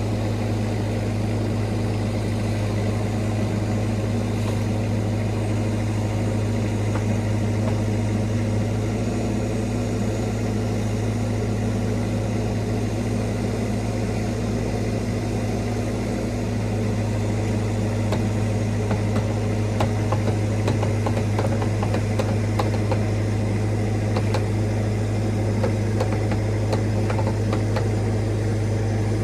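Bobcat E26 mini excavator's diesel engine running at a steady speed, with small knocks and clicks scattered through the second half.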